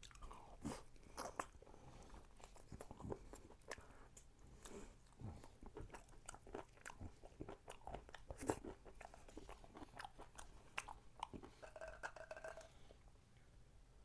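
Close-up crunching and chewing of crispy sauced fried chicken (Supreme yangnyeom chicken), many crisp bites one after another. A brief held tone sounds near the end.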